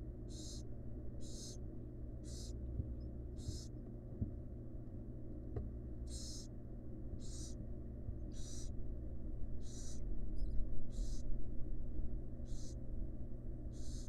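Barn owl nestlings giving their begging calls: short rasping hisses repeated about once a second, with a pause of a couple of seconds a few seconds in. A steady low hum runs underneath.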